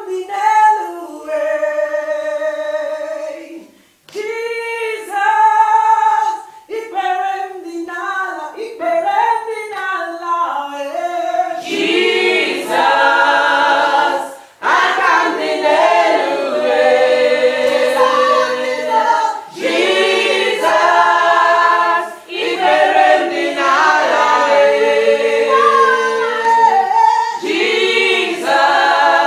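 Unaccompanied gospel worship singing by a small group: one voice sings alone at first, then more voices join in together about twelve seconds in.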